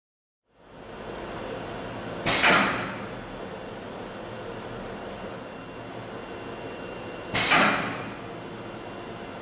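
SignTronic computer-to-screen machine's automatic screen loading and registering mechanism running with a steady mechanical noise, broken twice by a loud sudden sound about five seconds apart, each fading over about half a second.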